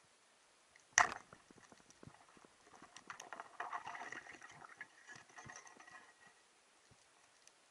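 A single sharp crack about a second in as a band-powered speargun fires underwater, then a few seconds of dense crackling and rattling as the speared sea bream struggles on the shaft against the rocks.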